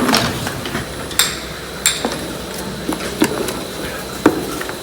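Sharp, irregular knocks and clanks from dairy shed equipment, about six in a few seconds, over a steady machinery hum.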